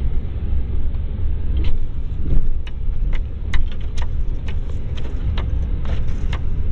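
Vehicle driving through snow: a steady low engine and drivetrain rumble, with frequent sharp clicks and rattles as it bumps along.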